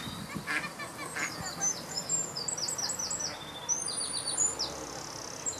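A small songbird singing a fast run of short, high, falling notes, starting about a second and a half in, over a duck calling briefly near the start.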